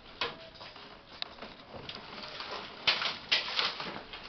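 A few sharp clicks and knocks, then a quick cluster of several louder knocks about three seconds in.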